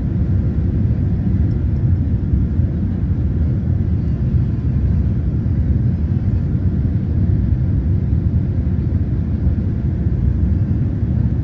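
Steady low rumble of an airliner cabin in flight: the jet engines and rushing air heard through the cabin window.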